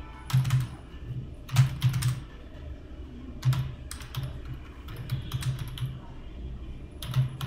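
Computer keyboard being typed on, keys clicking in several short bursts with brief pauses between them.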